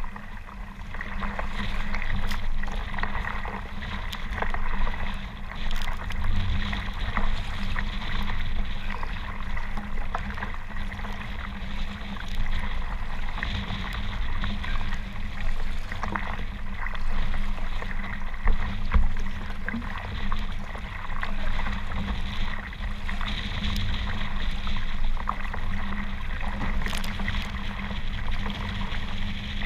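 Choppy water splashing and sloshing around a kayak, with wind rumbling on the action camera's microphone.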